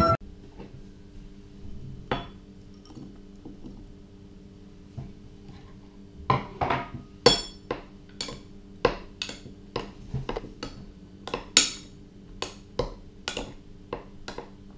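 Batter being mixed with a utensil in a dish. A couple of single clinks come first, then from about six seconds in the utensil clinks against the sides about two to three times a second.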